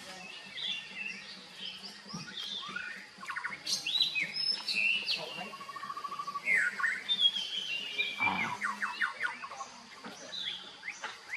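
Birds chirping and singing: a run of short chirps, pitch glides and quick trills, busiest in the middle, over a faint steady low hum.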